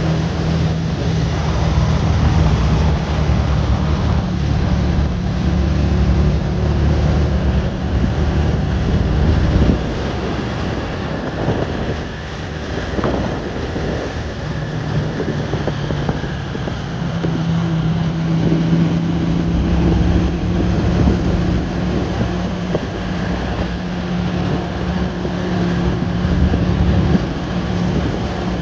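A motor vehicle's engine running steadily with wind noise on the microphone; the engine tone fades briefly about ten seconds in and returns a few seconds later.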